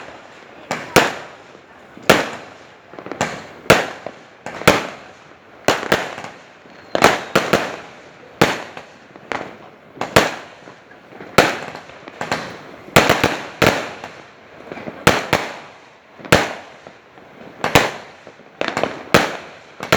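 Fireworks going off in a long, steady volley: sharp bangs about one to two a second, some in quick pairs, each trailing off in a short echo.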